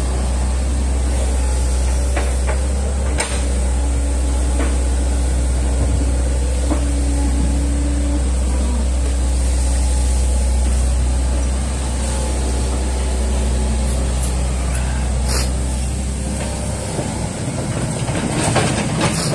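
Hitachi crawler excavator's diesel engine running steadily under load while the machine digs a ditch, with a few sharp knocks. Near the end the engine rumble weakens and a rustling noise rises.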